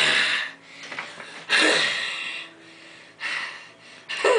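A person's breathy, wheezy vocal bursts, four loud ones with short quiet gaps between, the second lasting about a second.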